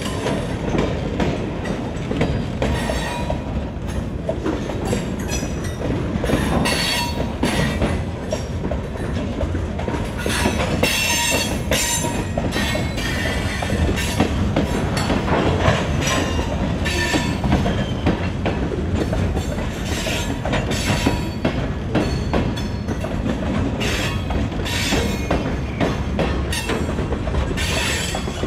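Freight train of covered hopper cars rolling past close by: steel wheels rumble on the rails and clack over joints, with squeals from the wheels now and then.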